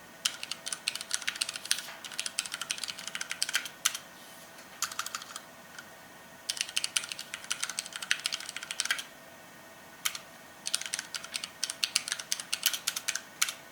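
Typing on a TEX Yoda TrackPoint mechanical keyboard with Cherry MX Red linear switches: fast runs of key clicks and clacks in four bursts, broken by short pauses.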